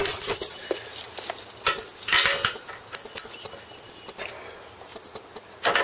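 Scattered metal clicks and clinks of a socket wrench set being handled: a half-inch socket is swapped for a 5/8 spark plug socket on the ratchet. The clinks come in short clusters, with the loudest near the end.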